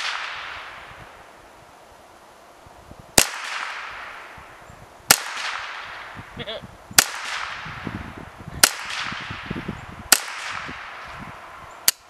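Ruger 10/22 semi-automatic .22 LR rifle firing subsonic rounds, six shots at about one every one and a half to two seconds, each sharp crack trailing off in echo.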